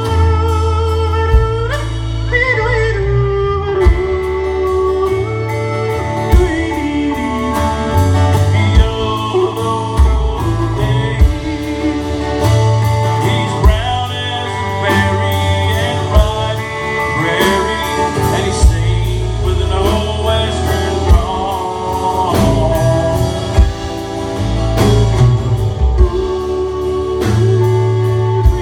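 A song with a singing voice over guitar and bass, and a steady beat.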